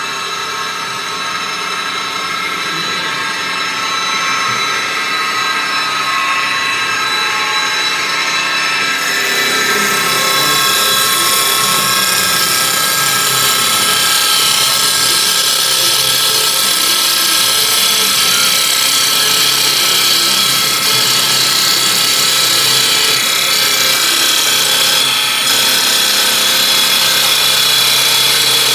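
CNC wood-turning lathe running with a steady machine whine. About nine seconds in a louder hiss joins as the cutter turns a spinning wooden blank into a spindle.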